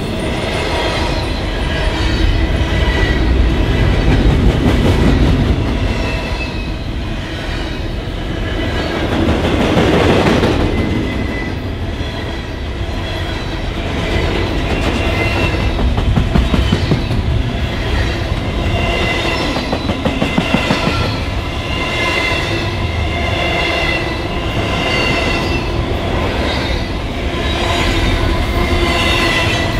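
Union Pacific freight train rolling past, its cars' steel wheels clicking steadily over the rail joints under a continuous rumble, with high wavering squeals from the wheels.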